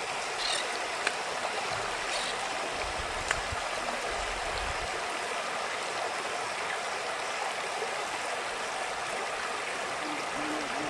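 Creek water running steadily over its bed, with a couple of brief sharp clicks about one and three seconds in.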